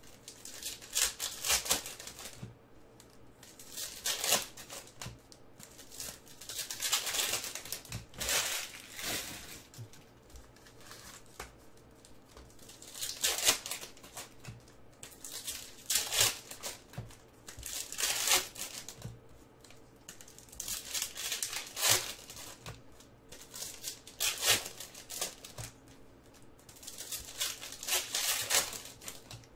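Foil wrappers of Panini Prizm basketball card packs being crinkled and torn open by hand. The crinkling comes in irregular bursts every one to three seconds.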